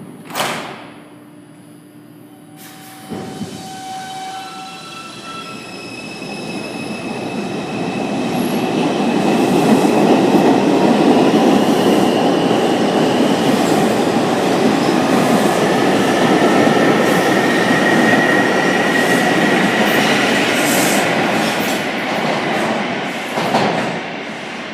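New York City Subway R142 train running on the elevated Dyre Avenue Line: a sharp knock just after the start, then wheel-and-track rumble that builds over several seconds, holds loud, and fades near the end. A thin, slightly rising whine from the wheels or motors runs through the loudest part.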